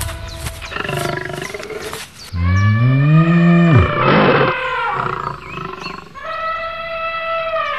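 Cartoon sound-effect animal roars: a deep roar that rises and then drops off, a short rough burst, then a higher drawn-out call that falls in pitch at the end. Background music fades out just before the roars.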